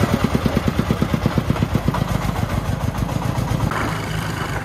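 Single-cylinder diesel engine of a loaded công nông, a homemade three-wheeled dump truck, chugging with a fast, even beat of thumps as it pulls the load. In the last second the beat smooths into a steadier drone.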